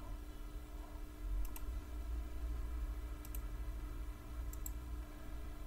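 Computer mouse clicking: three quick double clicks about a second and a half apart, over a low steady electrical hum.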